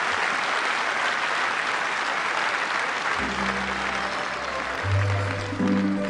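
Large stadium audience applauding. About three seconds in, a tamburica band's introduction starts under the clapping with low plucked bass notes.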